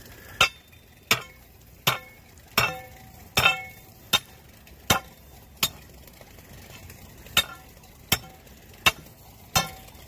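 Steel breaker bar jabbed into a wet saw-cut groove in asphalt, chipping out the notch: a sharp metallic clink with a short ring about every three-quarters of a second, about a dozen strikes, with one longer pause after about six seconds.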